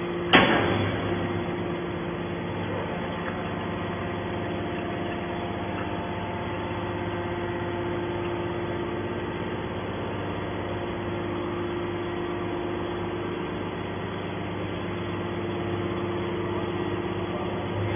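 Hydraulic scrap metal baler running with a steady hum from its hydraulic power unit as the ejection ram slowly pushes a compressed bale of light scrap out of the chamber. A single sharp metallic clunk about half a second in is the loudest sound.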